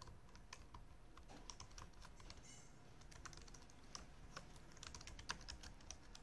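Faint keystrokes on a computer keyboard, typed at an uneven pace while an email address is entered.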